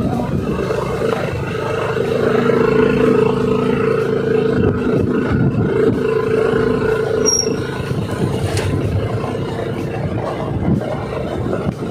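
Honda Click 160 scooter's single-cylinder engine running under load as it is ridden over rough ground, a steady drone that weakens after about seven seconds.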